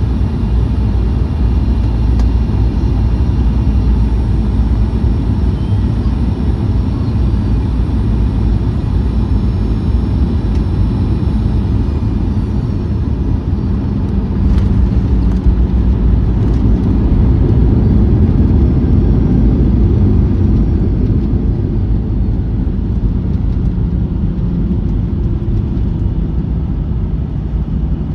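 Cabin noise of a Boeing 737-900ER heard from a forward window seat on the ground after landing: a steady low rumble with a thin high engine whine that falls in pitch and fades about halfway through.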